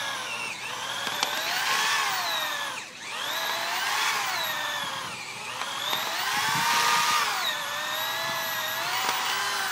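Corded electric drill boring a large hole into a block of old wood, with a bit that is thought to be a little dull. The motor's whine sinks and rises as the bit loads up in the wood, dipping deepest about three seconds in and again about five seconds in.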